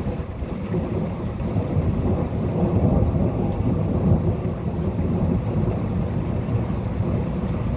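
Thunderstorm: a long low rumble of thunder, swelling about halfway through, with rain falling.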